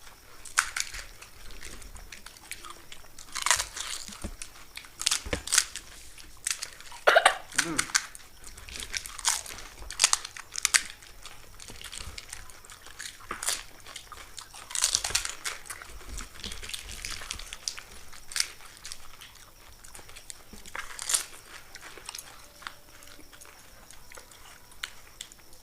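Crisp fuchka (pani puri) shells being cracked and bitten, with irregular crunching and chewing as the spicy-water-filled puris are eaten quickly.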